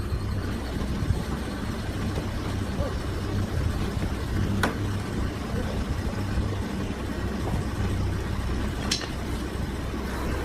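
An engine running steadily at idle, with a couple of short sharp clicks partway through.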